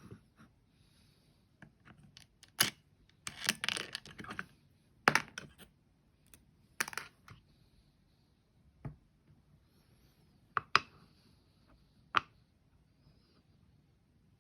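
Metal hand coffee grinder parts and burrs clicking and clinking as they are taken apart, handled and set down. There are a dozen or so separate sharp clicks and a short clattery run of them about three to four seconds in.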